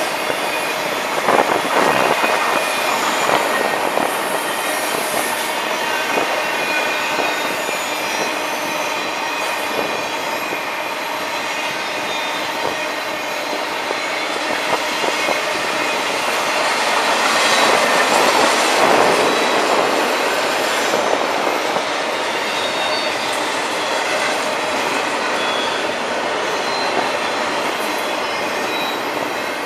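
Intermodal freight cars rolling past: a steady rumble and rattle of wheels on rail, with thin high squealing tones from the wheels on the curve and occasional clacks. It swells louder about two-thirds of the way through.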